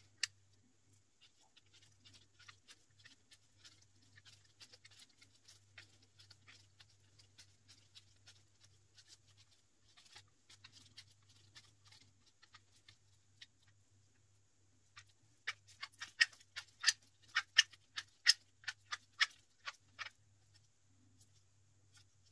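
Faint clicking and ticking of a 3D-printed plastic handgun rear sight press being handled and its parts moved. In the last third comes a run of about a dozen sharper clicks, roughly three a second.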